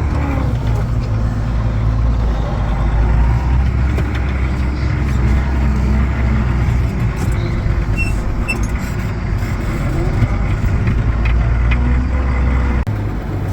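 Farm tractor engine running steadily while pushing snow. Its low note shifts and briefly dips a little before the end.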